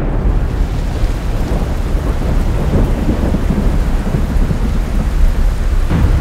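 Thunderstorm: steady heavy rain with a low rolling rumble of thunder, and a fresh crack of thunder starting near the end.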